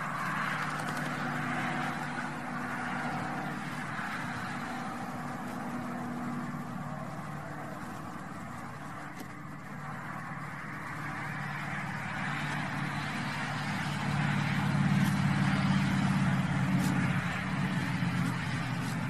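An engine running steadily at an even pitch, with a hiss of road or wind noise; it grows louder for a few seconds about three-quarters of the way through.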